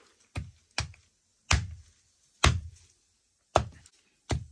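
A blade chopping a pork leg, six hard strikes at uneven intervals, cutting it into pieces small enough to fit in the cooking pot.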